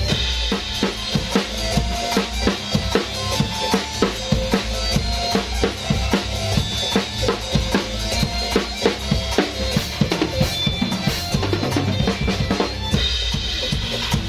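Acoustic drum kit played with sticks: bass drum, snare and cymbal strikes in a steady, busy beat, over a recorded backing track with bass and other pitched instruments.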